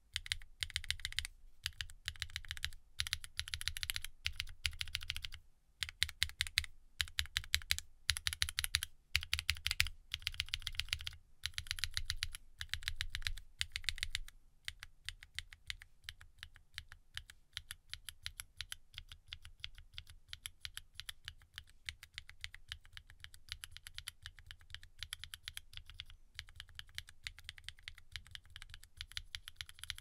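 Fast typing on SWK linear mechanical switches (F3, V Black, Neon, Yin) in a Geon Frog Mini keyboard with an aluminium plate, no foam and ABS doubleshot keycaps. For about the first half, short bursts of rapid keystrokes are broken by brief pauses; then continuous rapid typing, a little quieter, runs on.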